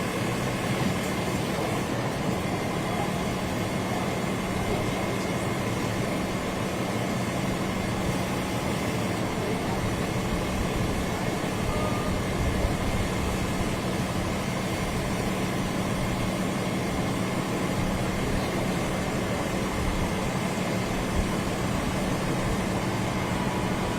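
Steady mechanical rumble and hiss with a constant low hum.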